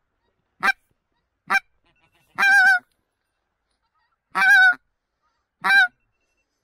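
Hand-blown goose call sounding a string of separate honks: two short clucks, then three longer honks with a wavering pitch, spaced over a second apart, calling to incoming geese to draw them to the decoys.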